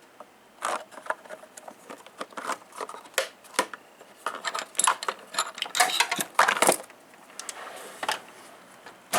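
Metal hand tools clinking and rattling against each other as they are handled in a toolbox drawer, a quick irregular run of clicks that is busiest in the middle.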